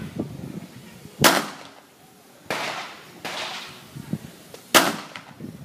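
Two sharp pistol shots about three and a half seconds apart, with two softer, duller bangs between them.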